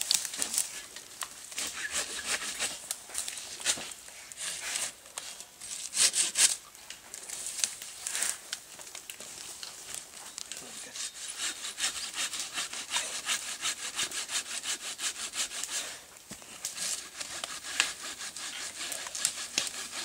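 Japanese Samurai hand pruning saw cutting through a pine branch: runs of fast back-and-forth strokes with short pauses, the strongest strokes about six seconds in.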